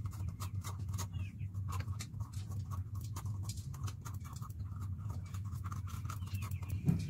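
A knife cutting into raw green capsicums (bell peppers) to remove the stems and seed cores: a dense run of crisp cutting clicks and scrapes, over a steady low hum.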